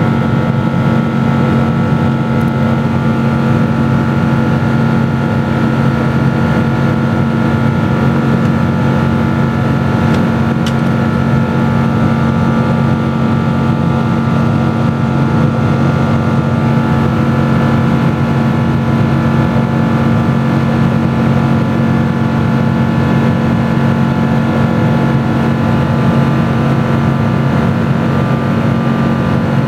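Steady cabin drone of a Boeing 777-200ER in flight, heard from a window seat: the Rolls-Royce Trent 892 turbofans' even hum with several held tones over the rush of air past the fuselage.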